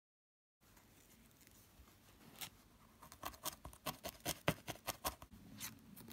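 Wool being worked onto a pipe-cleaner leg: faint, dry scratchy clicks that start a couple of seconds in and come faster and louder toward the end, several a second.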